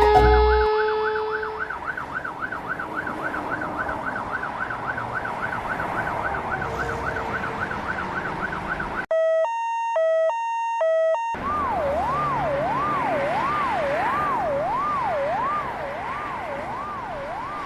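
A series of electronic emergency-vehicle sirens: a fast warbling yelp for the first nine seconds or so, then a clean two-tone hi-lo siren for about two seconds, then a slower rising and falling wail to the end.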